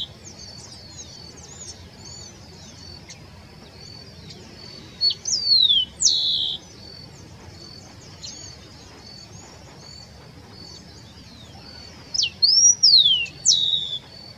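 Rufous-collared sparrow singing: two songs about seven seconds apart, each a few slurred, falling whistles ending in a short trill.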